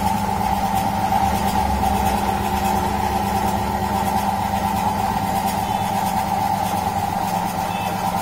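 Sonyo 100-litre belt-driven air compressor running: the electric motor driving the pump through a V-belt with a steady, unchanging hum.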